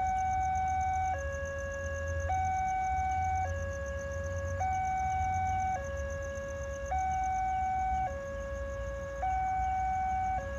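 Railway level-crossing warning alarm sounding an electronic two-tone chime, a lower note and a higher note taking turns, each held for just over a second.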